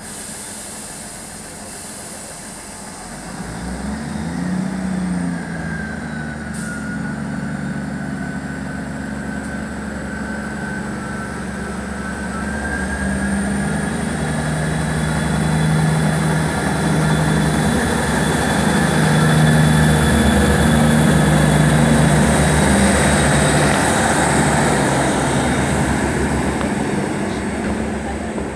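Class 158 diesel multiple unit pulling away. Its underfloor diesel engines rev up a few seconds in, then drone steadily under power, with a high whine over the top. The sound grows louder as the train passes close by and eases off near the end as it moves away.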